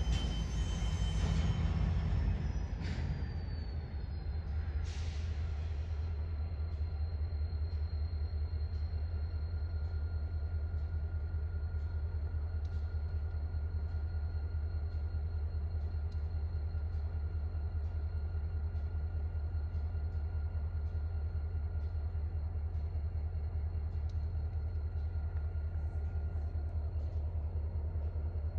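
Diesel locomotives idling with a steady, evenly pulsing low rumble. A louder stretch dies down over the first few seconds.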